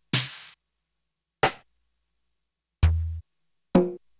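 MFB-501 Pro drum machine playing its lo-fi sample drum voices one at a time: four separate single hits about a second apart, the third a deep low thump and the last a pitched tone, each cut off short.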